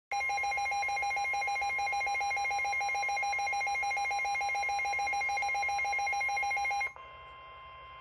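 Midland NOAA weather radio sounding its warning alert: a loud, rapid two-tone warbling beep over a steady 1050 Hz Warning Alarm Tone, signalling a severe thunderstorm warning. The warble cuts off about seven seconds in, and the steady tone carries on much quieter through the radio's speaker.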